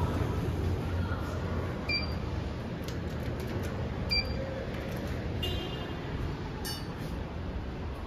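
Passenger lift with a steady low hum, two short electronic beeps about two seconds apart, then a brief multi-tone chime and a click.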